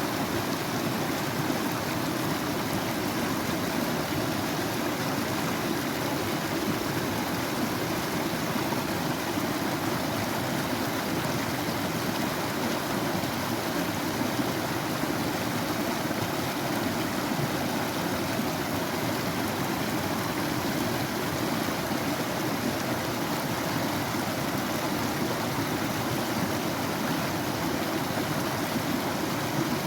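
Stream water rushing and burbling over rocks, a steady even flow.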